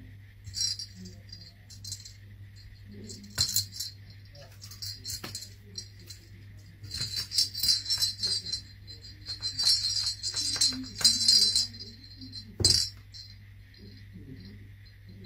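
A small jingle bell jingling in irregular bursts as a paper dragon puppet bats it around on a desk, with a couple of sharper knocks, the loudest near the end.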